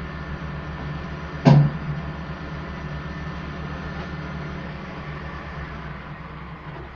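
Road-construction machinery engine running steadily with an even low throb, and a single loud bang, like a metal clank, about one and a half seconds in.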